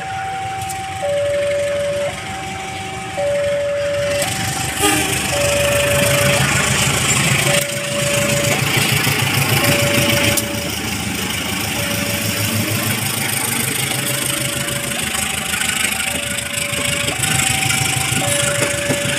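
Level-crossing warning alarm sounding a two-tone signal, alternating high and low about once a second. From about four seconds in, a CC201 diesel-electric locomotive passes close with its engine running loudly, followed by passenger coaches rumbling along the rails.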